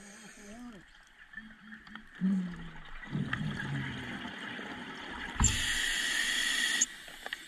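Scuba diver breathing underwater through a regulator: a rush of exhaled bubbles, then a loud steady hiss of the regulator delivering gas on the inhale, which cuts off sharply about a second and a half later.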